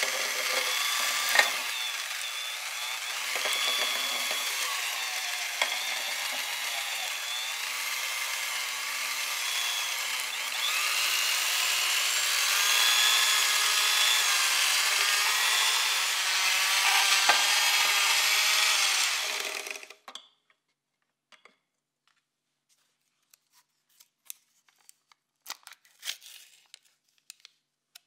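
Electric hand mixer running as its beaters whip cream cheese in a glass bowl, a steady whir with a wavering pitch. It gets louder about a third of the way in and stops suddenly about two-thirds in, leaving a few light clicks and taps.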